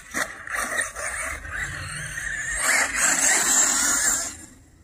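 HPI Vorza RC truggy running on a 6S battery: its brushless motor whines as the throttle rises and falls, with tyres working the dirt. The sound drops away sharply near the end.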